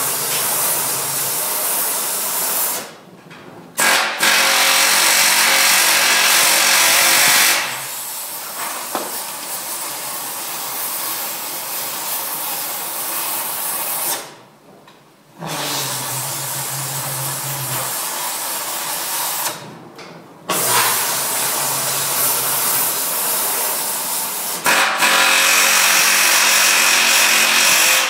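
A power tool running in long bursts, a steady hissing noise with a low hum under it, stopping briefly three times.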